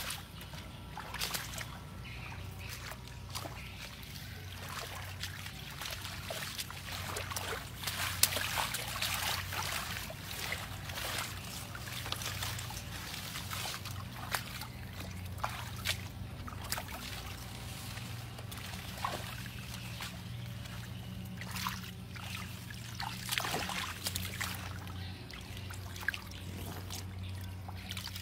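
Water trickling and sloshing, with scattered splashes and clicks and one sharp knock about eight seconds in, over a steady low hum.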